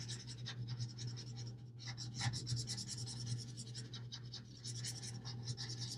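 Felt tip of an Ohuhu alcohol marker scratching softly across paper in short, irregular coloring strokes, over a low steady hum.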